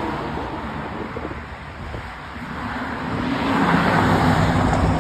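Road traffic: a motor vehicle passing, its engine and tyre noise growing louder about three seconds in.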